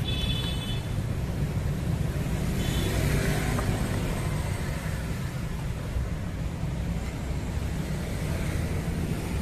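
Steady rumble of road traffic going past, swelling as a vehicle passes about three seconds in.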